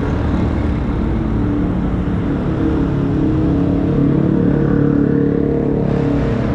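Street traffic: small motorcycle and auto-rickshaw engines running and passing close by, with a steady engine drone that grows stronger partway through.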